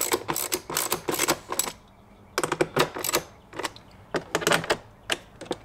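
Small hand ratchet clicking in quick bursts with short pauses as it runs 8 mm nuts down to hold a car speaker in a plastic door panel.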